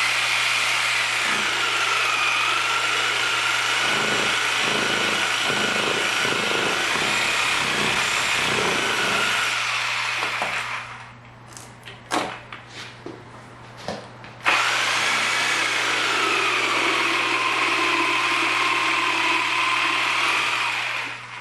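Electric saw with a small wood blade cutting through a Michelin PAX run-flat tire, running for about ten seconds with a whine that dips and wavers in pitch as the blade loads, then stopping. A few sharp knocks follow, and the saw starts again and cuts for about seven seconds more.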